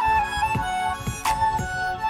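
Background music: a melody over a steady beat of low drum hits, about two a second.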